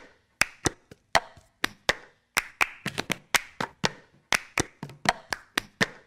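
A rapid run of sharp claps or taps in an uneven rhythm, about three to four a second, each with a brief ring, cutting off suddenly near the end.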